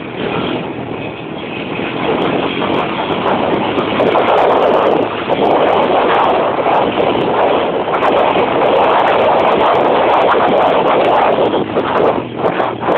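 A vehicle's engine running as it drives over a rough grass field, with knocks and rattles from the bumpy ground. It grows louder a few seconds in and dips briefly near the end.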